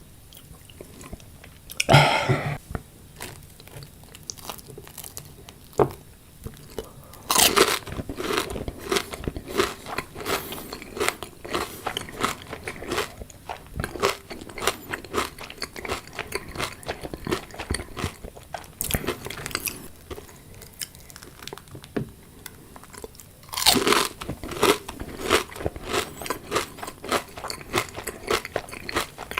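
A person biting into crunchy food and chewing it. Three loud bites, about two seconds in, about seven seconds in and near the end, each followed by a run of many quick, crisp chewing crunches.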